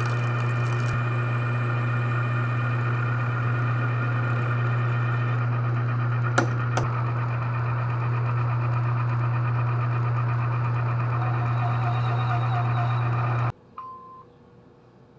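Metal lathe running steadily with a strong low hum, drilling out the end of a bar through a drill chuck in the tailstock. Two sharp clicks come about six and a half seconds in. The machine sound cuts off suddenly near the end, leaving only faint background.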